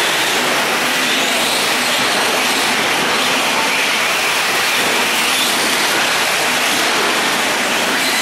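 Several electric 1/10 short course RC trucks racing on a dirt track: a steady hiss of motors, gears and tyres, with faint whines rising and falling as the drivers work the throttle.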